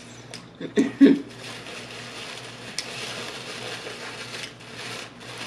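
Close-miked chewing of a calzone, a soft, continuous mouth noise with one small click partway through. A short hummed 'mm' of enjoyment comes about a second in.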